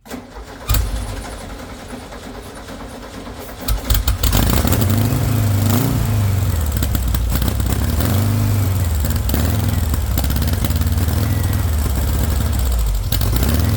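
VW engine cranked on starting fluid, catching about four seconds in and then running loud through a straight pipe, its revs rising and falling unevenly. It runs only on the spray because it gets no fuel pressure, which the owner suspects is a bad fuel pump.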